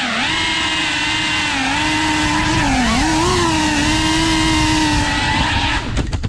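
3.5-inch cinewhoop FPV drone's motors and ducted propellers whining, the pitch dipping and rising as the throttle changes. Near the end there are a few sharp knocks, and the whine cuts off suddenly as the drone comes down on the floor.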